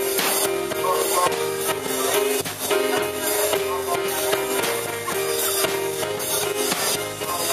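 Instrumental music with sustained held notes over busy, steady percussion, such as tambourine or drums.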